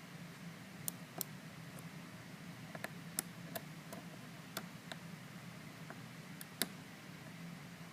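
Lock pick working the pins inside a Master Lock 410 lockout tagout padlock under light tension: scattered, irregular small sharp clicks, about nine of them, over a faint steady hum.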